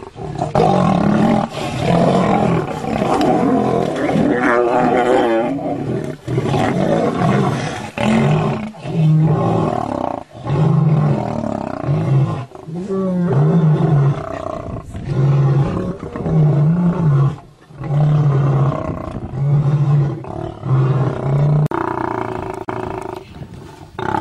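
Male lions snarling and growling at one another over a carcass, then a long run of deep, evenly spaced grunting roars, about one a second.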